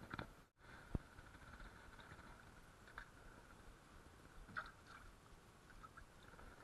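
Near silence with faint, close handling noise: small clicks and rustles of fingers working a hook into a small live bait fish, with one sharper click about a second in.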